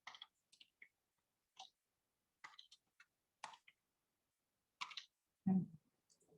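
Quiet, irregular clicking of a computer keyboard and mouse, roughly one or two clicks a second, with one duller, lower thump about five and a half seconds in.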